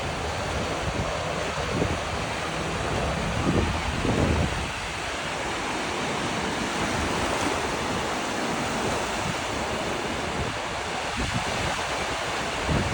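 Ocean surf washing steadily on a beach, with wind buffeting the microphone in a few louder low gusts, the strongest about three to four seconds in.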